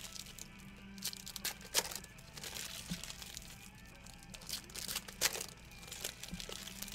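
Trading-card pack wrappers crinkling and tearing as packs are opened and handled, with a few sharp crackles, over quiet background music.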